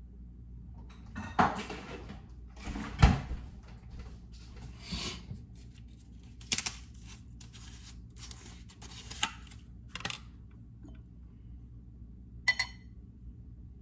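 Kitchen clatter: a series of knocks and thuds as things are handled and set down on a granite countertop, the loudest about three seconds in. Near the end comes a short ringing clink of a glass.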